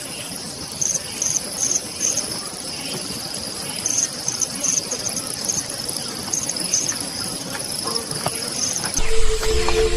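Forest insect ambience, likely crickets: a steady high-pitched drone with short chirps repeating in small groups. Music comes in about nine seconds in.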